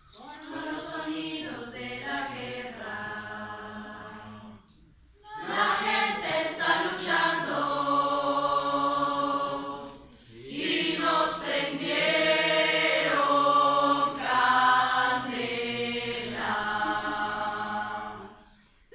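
A choir singing in three phrases of long held notes, with short breaks about four and a half and ten seconds in.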